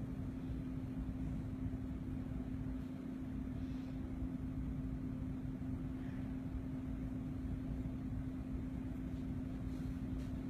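A small motor or fan running steadily, a constant low hum over a low rumble, with a few faint ticks on top.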